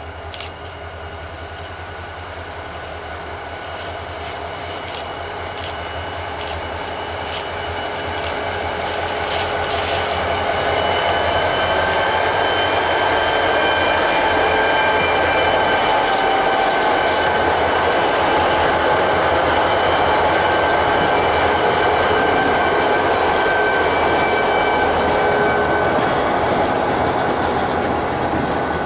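R.J. Corman diesel freight locomotives approach and pass, growing louder over the first ten seconds or so, followed by open-top freight cars rolling by. Steady high wheel squeal from the curve runs through it, with clicking over the rails as the train nears.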